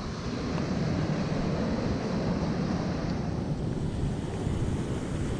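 Ocean surf washing in steadily, mixed with wind buffeting the microphone.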